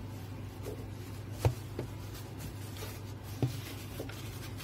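Wooden rolling pin rolling out bread dough on a silicone baking mat: soft rubbing and scuffing, with a light knock about a second and a half in and another near three and a half seconds, over a steady low hum.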